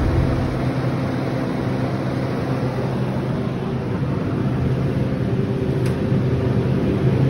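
Walk-in cooler refrigeration unit running: a steady mechanical hum with a low drone, from a new Bohn system whose evaporator has one dead fan motor, the reason it is icing up.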